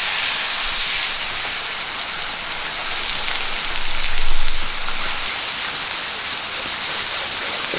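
Ground pearl-onion and spice paste sizzling in hot oil in a metal kadai, a steady rain-like hiss, stirred with a wooden spatula. The sizzle swells briefly about four seconds in.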